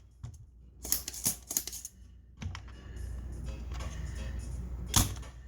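Sharp clicks and taps of small metal tools against an amplifier circuit board during soldering work: three quick ones about a second in and one louder click near the end, over a steady electrical hum.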